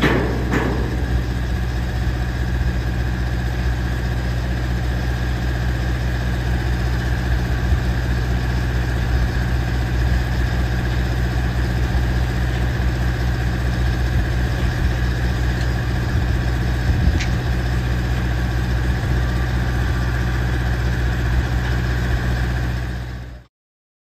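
Engine of a large wheeled construction machine idling steadily, with a couple of sharp knocks right at the start; the sound stops abruptly near the end.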